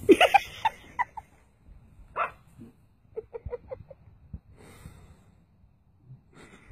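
A dog barking and yipping: several barks in the first second, another about two seconds in, then a quick run of about six short yips.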